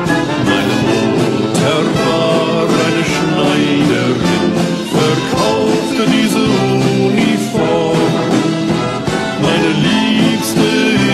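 Orchestral music with brass, playing continuously.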